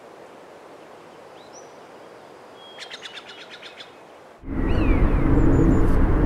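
Birds chirping over a quiet outdoor background, with a short rapid trill of repeated notes near the middle. About four and a half seconds in, a loud, steady rumbling noise cuts in abruptly, and a few chirps are still heard over it.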